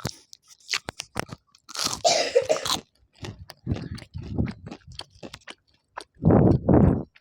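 Close-up eating sounds: crunchy bites and chewing with many sharp clicks, a long crunch about two seconds in and a louder stretch of chewing near the end.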